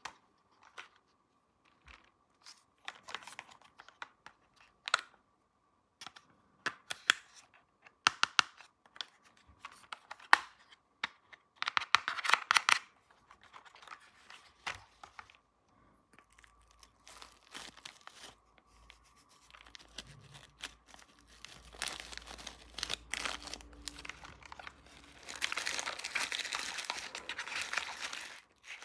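Plastic toy packaging being handled, crinkled and torn open by hand, with scattered sharp clicks and short crackles, and a longer stretch of tearing and crinkling near the end.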